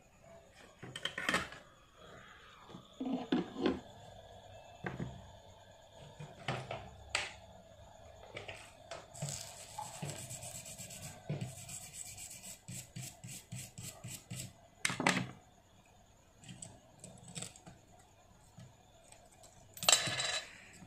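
Tool scraping and clicking against a phone circuit board as a glued eMMC chip is drilled and scraped away. The strokes come in short irregular scrapes, with a quick run of them in the middle and a few sharper clicks, the loudest near the end.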